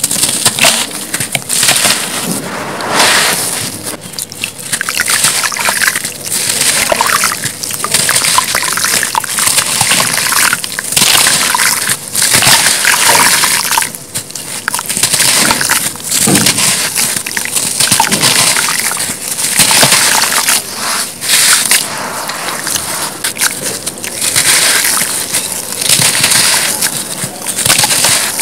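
Soft, grainy cement-sand blocks crushed and crumbled by hand, the grit crunching and pouring down in an uneven, continuous rustle. Some of the material is damp, adding a wet, slushy squish.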